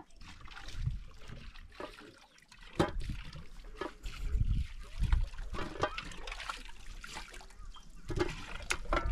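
Water trickling from a black plastic hose into a metal pot, with scattered knocks and clicks.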